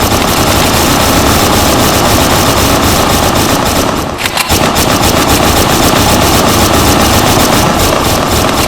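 An exchange of rapid automatic gunfire, the shots packed so close that they run together into a continuous loud rattle, with a short lull about four seconds in.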